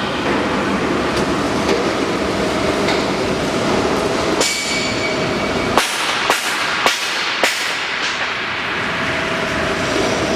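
Fish meal mixer running with a steady mechanical noise and a faint hum. In the middle comes a run of four sharp metallic knocks about half a second apart.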